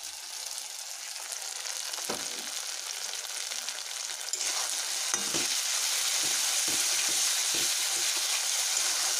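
Onion-garlic masala frying in an aluminium kadai with turmeric just added, a steady sizzle that grows louder about halfway through. A spatula stirs it, scraping and knocking against the pan several times.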